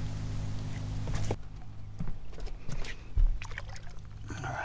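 Scattered light knocks and clatter in a bass boat, with one dull thump about three seconds in, over a steady low hum. These are handling noises as a caught bass is taken to be released.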